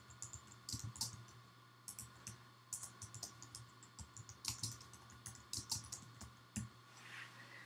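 Computer keyboard being typed on: faint, irregular key clicks in quick runs with short pauses between them.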